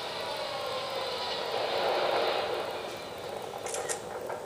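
Jet airliner engine noise from a film soundtrack, heard through a portable DVD player's small speaker: a steady rush that swells about two seconds in and then eases off, with a couple of faint clicks near the end.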